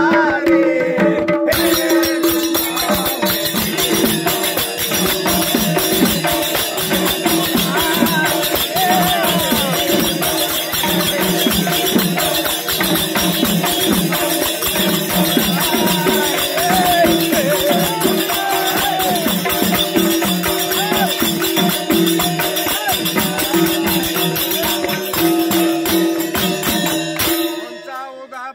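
Devotional bhajan music: a man singing over a barrel drum and a fast, continuous jingling percussion, with people clapping along. The music breaks off shortly before the end.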